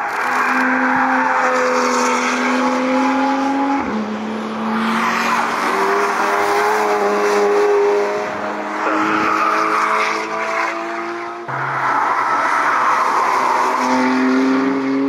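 BMW and Audi performance cars running hard on a race circuit, their engine notes held high and rising slightly as they drive past. The sound is in three short clips, cut together about four and eleven seconds in.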